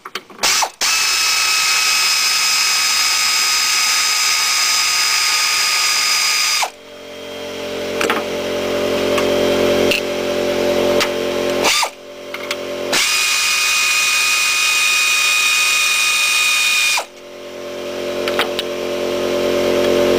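A power ratchet whines in two long, steady runs of several seconds each as it spins off the 15 mm nuts holding the upper engine mount cover. Each run cuts off abruptly. In the gaps a lower, steadier mechanical hum swells up.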